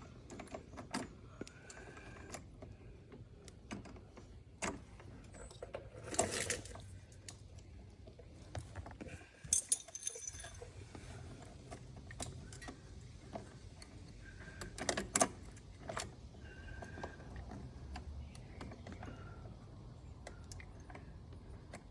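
Scattered metallic clinks and rattles of hand tools and bolts being handled, with a few louder knocks about six, ten and fifteen seconds in.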